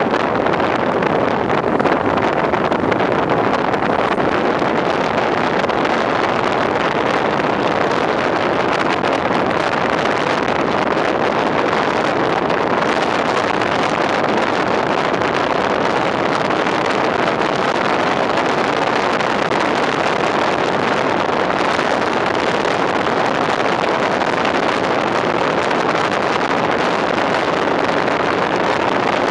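Steady rush of wind on a microphone held outside a moving fire engine's cab window, mixed with the truck's engine and road noise.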